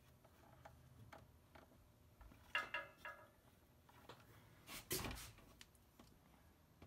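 Quiet handling sounds as the engine side case is worked onto the water pump shaft: a few light clinks about two and a half seconds in, and a single louder knock about five seconds in.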